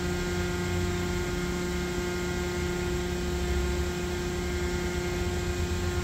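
Steady hum of powered-up machinery, several fixed tones over a low rumble, holding level throughout with no change.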